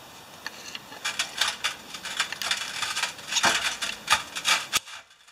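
Small metal carburetor parts being handled and fitted by hand: a quick run of light scrapes and clicks, ending in a sharp click near the end.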